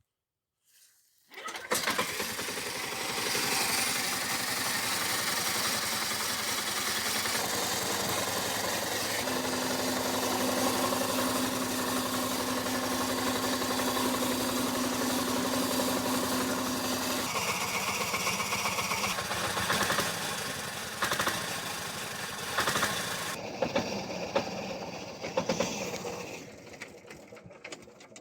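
Homemade mini tractor's small engine running steadily, coming in abruptly about a second and a half in and fading out near the end.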